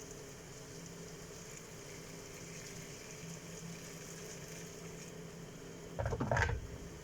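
Pot of okra simmering on the stove: faint steady bubbling over a low hum, then a brief loud knock and scrape about six seconds in.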